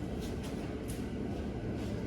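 Cub Cadet 127 garden tractor's single-cylinder engine running steadily, just after the points were reset.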